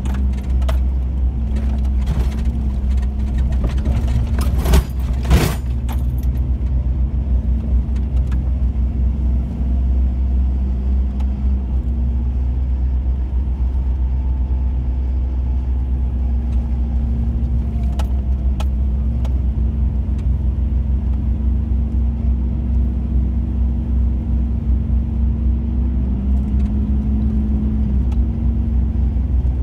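Chevrolet Blazer ZR2's engine running steadily at low speed while driving a snowy trail, with jangling and rattling. A few sharp clicks come about five seconds in, and the engine note rises slightly near the end.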